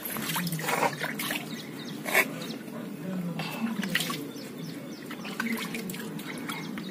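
Water splashing and dribbling in irregular handfuls as it is scooped from a small plastic bucket with cupped hands and splashed onto a face, some falling back onto the concrete.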